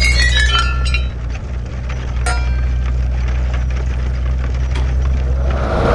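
Metal car parts clinking and ringing: a quick run of metallic tings falling in pitch in the first second, then a single clink a little past two seconds, over a steady low hum. Near the end a rushing noise swells up.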